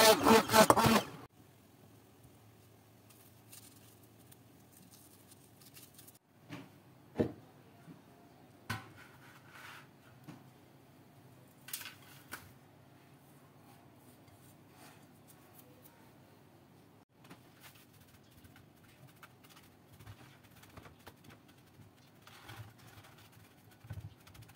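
Hand-held immersion blender grinding biscuits in a glass bowl, running loudly and cutting off about a second in. Then it goes quiet, with a few light knocks as the crumbs are tipped out of the bowl onto a baking tray, and soft rustling as they are pressed flat by hand.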